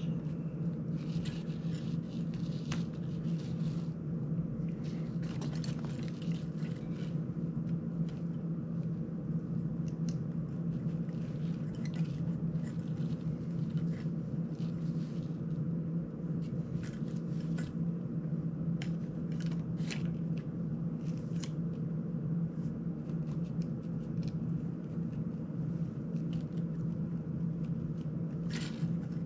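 Scattered small clicks and scrapes of hands and a small tool working on an FPV drone's frame and wiring, over a steady low hum.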